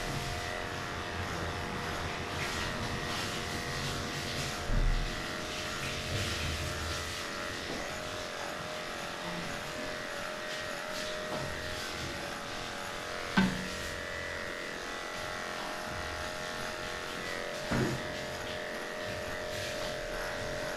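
Cordless electric dog clippers with an 8.5 blade running steadily as they shave down a matted coat. A few short knocks come about 5, 13 and 18 seconds in.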